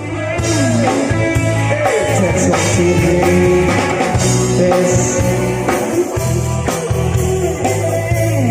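Rock music with a sung melody over electric guitar, bass and drum kit, loud and steady throughout.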